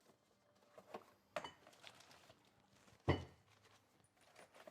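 Metal parts and tools being handled: a few light clinks and knocks, with one louder knock about three seconds in.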